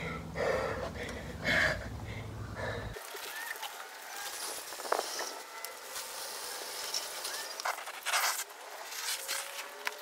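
Heavy rhythmic breathing, about one breath a second, from a woman exerting herself on an elliptical trainer, over a low steady hum. About three seconds in the hum cuts off and gives way to faint outdoor background with scattered clicks and taps.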